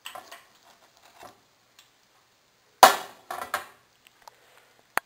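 A metal slotted skimmer knocking against a metal tray: one loud clank about three seconds in, followed by a few lighter knocks and clicks.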